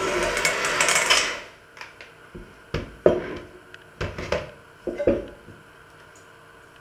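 Electric hand mixer with dough hooks kneading dough in a stainless steel bowl, switched off about a second in. Then a series of short knocks and clunks as the bowl, the mixer and the dough are handled, the loudest about three seconds in.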